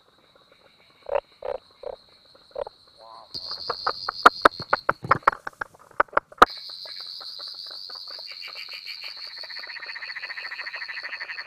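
A run of Australian frog calls. First come a few deep, widely spaced knocks from a great barred frog. Then a rapid series of sharp 'tok' clicks from a striped marsh frog. After about six seconds comes the steady whirring trill of a whirring tree frog, growing fuller near the end.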